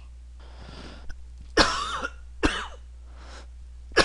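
A man coughing three times, each cough a short, sharp burst, with a faint breath drawn in before the first.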